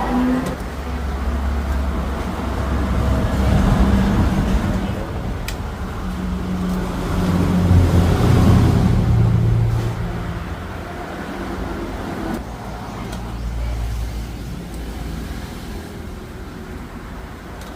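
Road traffic: engine noise of passing motor vehicles, swelling about four seconds in and louder again around eight to nine seconds, then fading.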